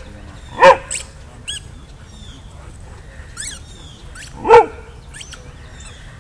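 A dog barks twice, a single loud bark each time, about three and a half seconds apart. Between the barks a squeaky ball gives several short, high squeaks.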